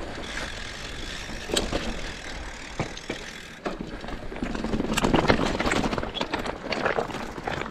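Riding noise from a bike: a steady rush of wind with many short clattering rattles, as over rough ground, heavier in the second half.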